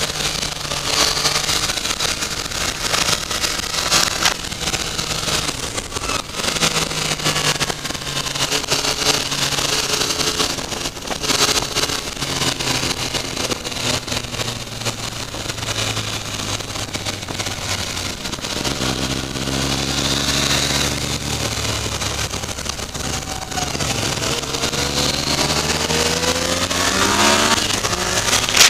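Yamaha FZ-09's three-cylinder engine running on the move, with heavy wind noise on the microphone. The engine pitch shifts several times, then climbs steeply near the end as the bike accelerates.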